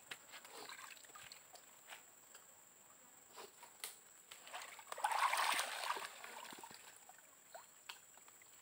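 Shallow stream water sloshing and trickling as hands grope under a submerged log, with scattered small splashes and one louder splash about five seconds in.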